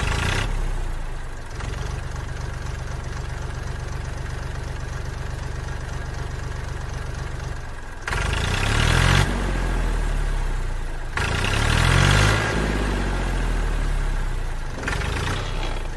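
Small tractor engine running with a steady low putter, then from about halfway louder, its pitch rising and falling twice as it is revved.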